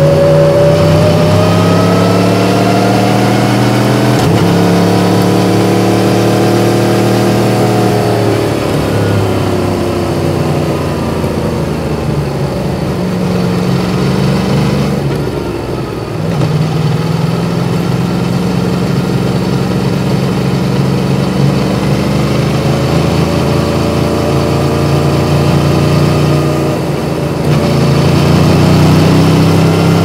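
Yamaha MT-10's crossplane inline-four engine under way on the road. The pitch climbs, breaks at a gear change about four seconds in, drops as the throttle eases off, and rises again in the second half.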